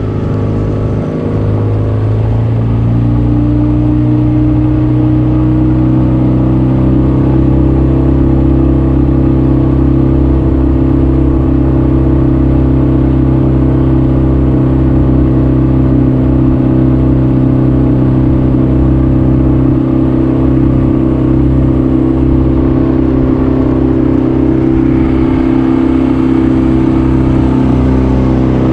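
Boat motor speeding up over the first few seconds, then running steadily at a constant speed.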